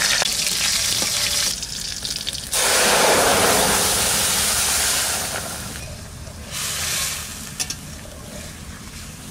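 Nigella seeds and green chillies sizzling in hot oil in a kadai. A louder hiss starts suddenly about two and a half seconds in and fades after about five seconds, leaving a softer sizzle.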